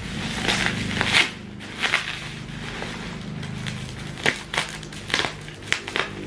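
Black plastic parcel wrapping and thick bubble wrap crinkling and crackling as they are cut and pulled open with a utility knife, with sharp, irregular crackles.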